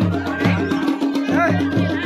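Folk dance music with a steady, repeating drum beat over a held drone note.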